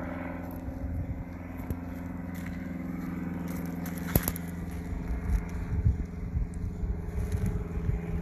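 Steady low hum with a rumbling undertone, broken by a few short clicks, the sharpest about four seconds in.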